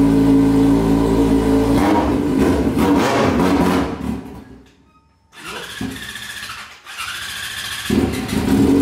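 Yamaha XJ6's 600 cc inline-four engine running indoors: a steady idle for about two seconds, then the sound turns rough and uneven and drops out briefly around the middle, and the steady idle returns near the end.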